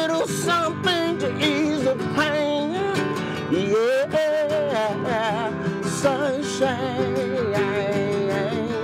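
Music: a wordless sung line with wavering pitch and vibrato over strummed acoustic guitar.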